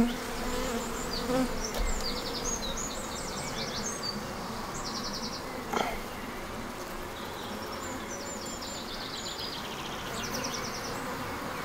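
Honeybees buzzing steadily over an open nuc hive as a frame is worked out with a hive tool, with a single knock about six seconds in. The colony is in a defensive mood on a damp day, with all the foragers at home.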